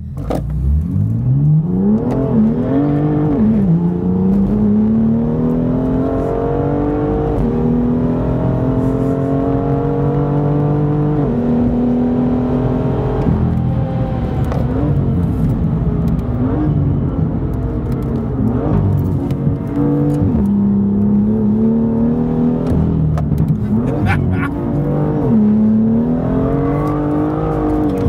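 BMW M2 F87's turbocharged straight-six pulling hard through the gears: the engine note climbs steadily and drops sharply at each upshift, over and over, and stays loud throughout.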